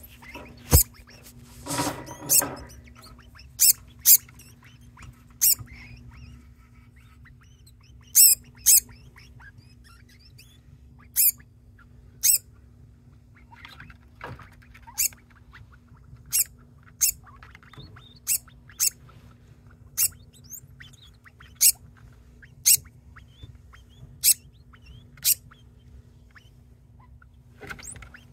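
Degu calling over and over with short, sharp, high-pitched squeaks, roughly one a second and sometimes in quick pairs, with a longer, lower call about two seconds in.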